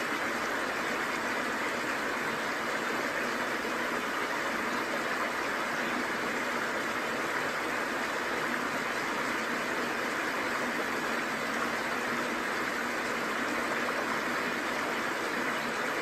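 Steady, even rush of a small waterfall and the fast stream below it.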